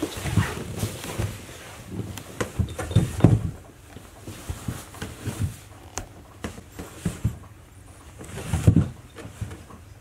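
Cardboard box being shoved in fits and starts across a wooden floor by a cat inside it: irregular scrapes, scuffs and soft thumps, loudest about three seconds in and again near the end.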